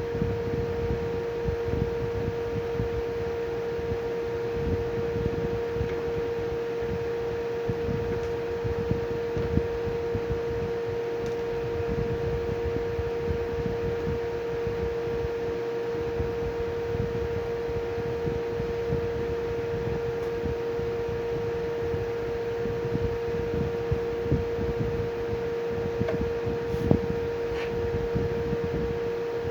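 A steady drone held at one pitch over a low rumbling noise, with a few faint clicks.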